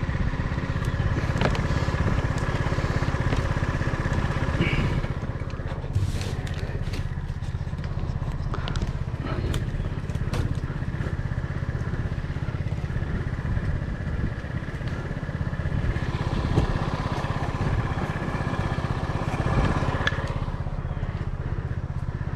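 An engine running steadily at idle, with scattered clicks and scraping over it.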